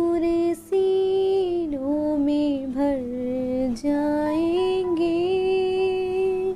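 A high solo voice singing a naat in long, drawn-out notes that slide and waver between pitches, with brief breaths about half a second in and just before four seconds.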